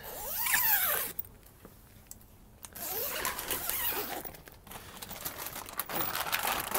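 Zipper on the clear plastic cover of a small walk-in mini greenhouse being pulled open, with the plastic sheeting rustling. It comes in three strokes: one in the first second, one in the middle and one near the end.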